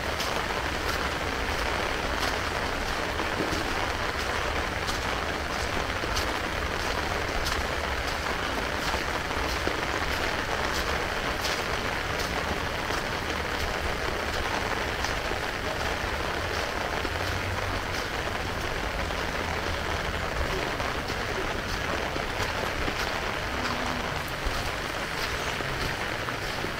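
Heavy rain falling steadily, with sharp individual drop hits scattered through it and a low rumble underneath.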